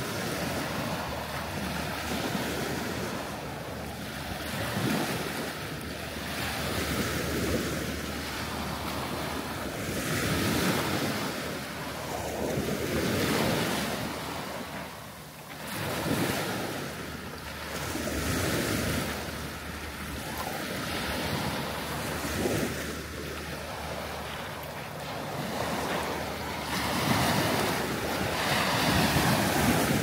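Small waves breaking and washing up a sandy shore strewn with pebbles and shells. The surf swells and falls back every two to three seconds and is loudest near the end.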